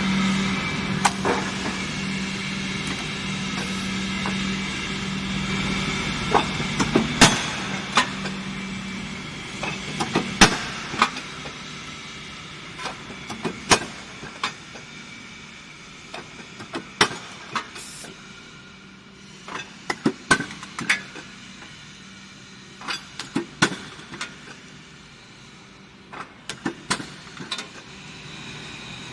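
CNC angle steel punching, marking and shearing line at work: a steady hydraulic pump hum that fades after about nine seconds, with sharp metallic clanks and knocks in clusters every few seconds as the machine clamps, feeds and strikes the angle bar.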